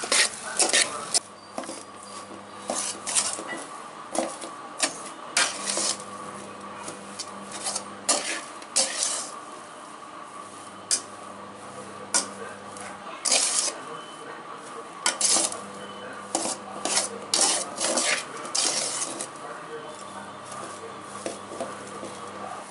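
A perforated metal ladle stirs and scrapes crumbly sweet aval puttu (flattened rice with jaggery and coconut) around a metal pan. Irregular scrapes and clinks come against the pan's bottom and sides, over a faint steady hum.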